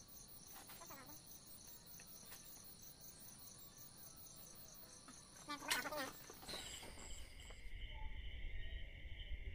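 Night insects chirring in a steady, finely pulsing chorus, broken by a short loud pitched sound a little past halfway. Near the end the chorus changes to a lower-pitched pulsing chirr over a low rumble.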